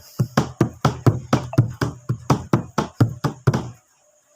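A steady rhythm of sharp knocks or taps, about four a second, that stops short about three-quarters of the way through.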